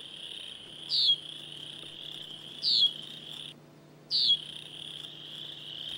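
Field ambience: a steady high insect trill, crickets, with a short falling chirp repeating about every one and a half seconds. The sound drops out for about half a second a little past halfway, then carries on.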